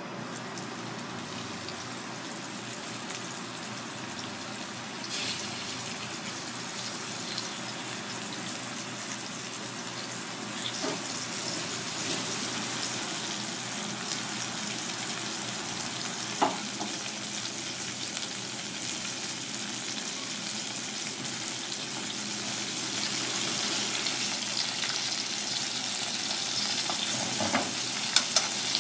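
Floured golden pomfret fillets sizzling as they shallow-fry in hot oil in a cast-iron pan, a steady sizzle that grows louder toward the end. A few sharp clicks sound over it, two of them close together near the end.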